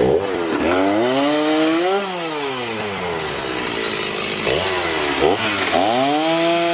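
Two-stroke gas chainsaw cutting into the weathered wooden beams of a play fort, its engine revving up and down: it climbs soon after the start, eases back at about two seconds, then revs up again after about four and a half seconds and holds high.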